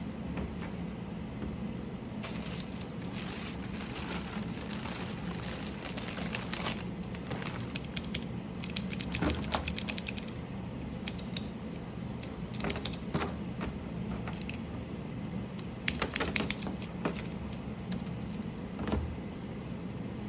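Mechanical keyboard keys clicking and clacking: a quick, dense run of key clicks, then scattered single clicks and short clusters, over a steady low hum.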